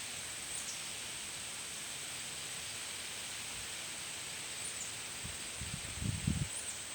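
Steady white-noise hiss for sleep, even across the range with a thin, high steady whine on top and a few faint short chirps. Irregular low rumbles come in about five and a half seconds in.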